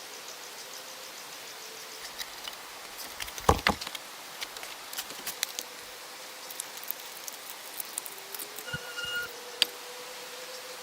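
Insects buzzing in the background, with scattered light crackles and one louder knock about three and a half seconds in.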